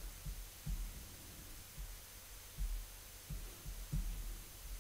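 Faint, irregular low thumps over a faint steady low hum.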